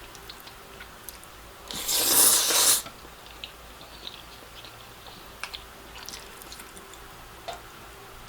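Close-miked eating of black bean noodles: one loud slurp lasting about a second, about two seconds in, then quiet chewing with small wet mouth clicks.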